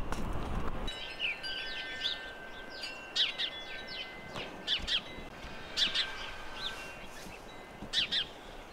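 Wind buffeting the microphone for about the first second, then small songbirds chirping and calling, many short quick notes scattered through the rest.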